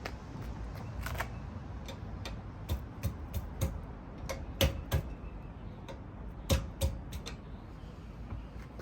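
A screwdriver tapping on a metal trailer-hitch anti-rattle clamp to drive it up onto the hitch receiver: about ten irregular, sharp metallic knocks, the loudest a little over halfway through.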